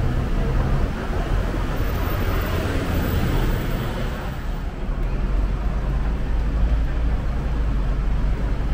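Steady city traffic noise: a low rumble of passing vehicles' engines and tyres.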